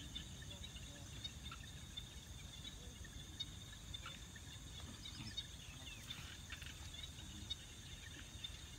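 Faint insect chorus, crickets chirring in a steady high trill, with a few short bird chirps in the middle.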